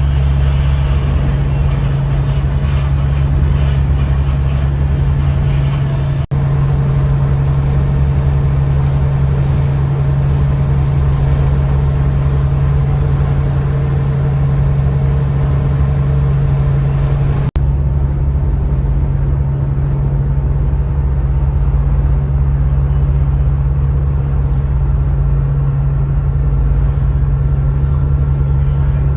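Ro-ro ferry's diesel engines droning steadily while under way, a constant low hum with a faint steady whine above it, heard from on board.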